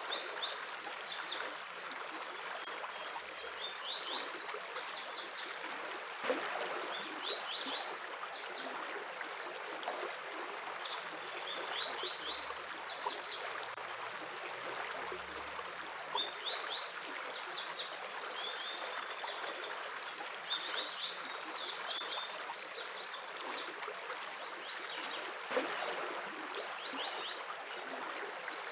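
Flowing stream of water rushing steadily, with a bird singing repeatedly over it in short phrases of quick, high notes every second or two.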